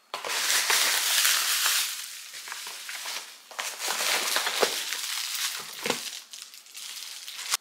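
Crinkling and rustling of packaging as a cardboard shipping box is opened and a foil bubble-insulation liner is lifted out, with a few small clicks and taps of the cardboard flaps.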